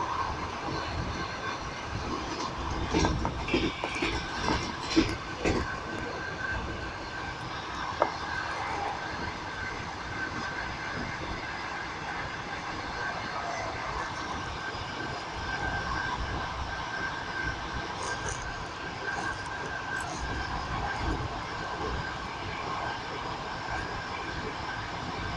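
Passenger train running along the track, a steady rumble with wheels clacking over rail joints. A cluster of louder clacks comes a few seconds in, and a single sharp click follows a few seconds later.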